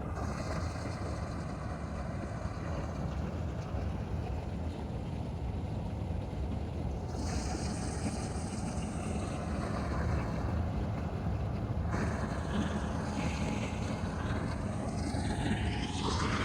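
Diesel engine of a combine harvester running steadily with a deep rumble, with wind on the microphone.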